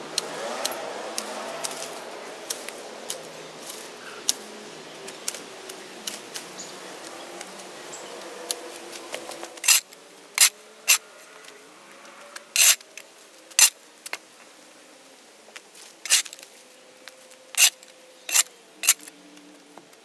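Brush and vines rustling as they are pulled, with small snaps. From about halfway through, a steel shovel strikes and scrapes across the asphalt court surface in about nine sharp, loud strokes, cutting off the layer of dirt and grass.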